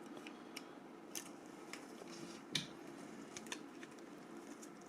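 Faint, scattered small clicks and light taps of a mobile phone's plastic parts and flex connectors being handled and unclipped during disassembly, the loudest about two and a half seconds in.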